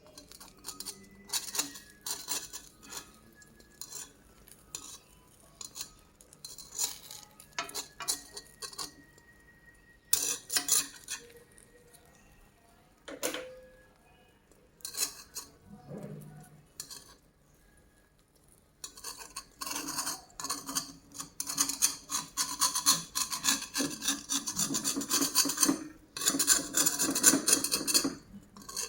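Kitchen utensils scraping and clinking against dishes or pans: short scrapes and clicks at first, then a longer run of rapid, continuous scraping in the last third.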